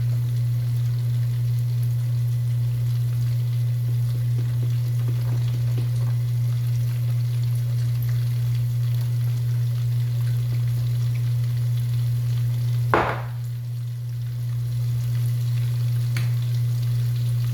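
Small pieces of funnel cake batter frying in hot oil, a faint scattered crackle, under a loud steady low hum. A single sharp knock about thirteen seconds in.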